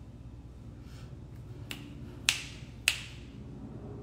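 A few sharp clicks: two loud ones about half a second apart past the middle, with fainter ones before them.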